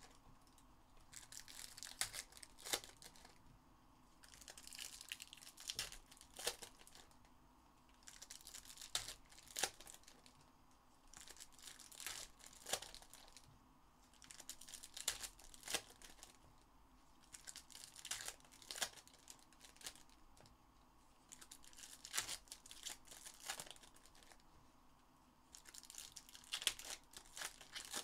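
Foil trading-card packs being torn open and their wrappers crinkled, one pack after another. Bursts of crackling tear about every three seconds.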